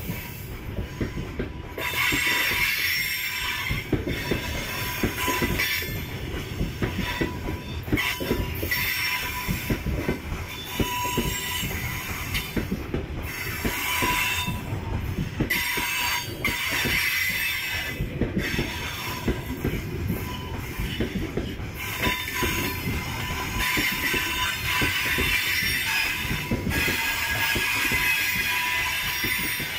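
Loaded open-top gondola freight wagons rolling past at close range: a steady rumble and clatter of steel wheels on the rails, with a high wheel squeal that swells and fades every few seconds.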